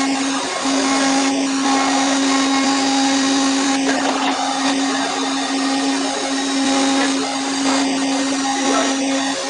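Five-axis CNC machining centre milling a metal workpiece: the spindle and cutter give a steady whine over a continuous hiss of cutting.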